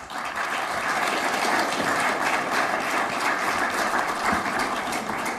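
Audience applauding: dense, steady clapping that starts sharply and fades out near the end.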